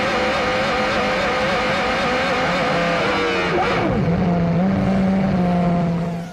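1995 Formula One race cars' engines at high revs on track, with one car screaming past about four seconds in, its pitch dropping sharply as it goes by. The sound cuts off suddenly just before the end.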